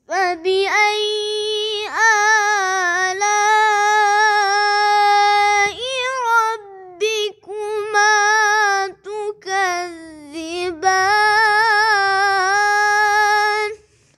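A single high voice reciting Quran in the melodic tarannum style, maqam Soba: long held, ornamented notes with a quick vibrato, in several phrases separated by brief breaths, ending in a long sustained phrase.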